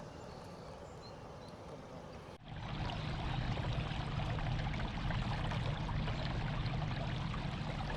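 Water trickling and lapping against a kayak hull. About two and a half seconds in, the sound cuts abruptly to a louder stretch of water noise with a steady low hum under it.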